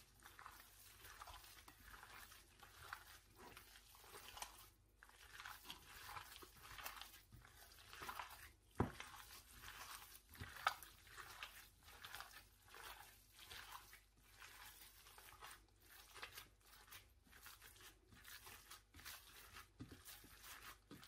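Raw minced meat with raw eggs, onion and herbs being kneaded by a gloved hand in a glass bowl: faint, irregular wet squishing and squelching. There are a couple of sharper ticks midway through.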